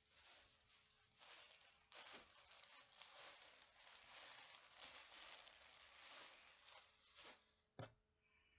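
Close rustling and rubbing handling noise, as of cloth brushing against the microphone while the camera is moved, ending with a single sharp knock near the end.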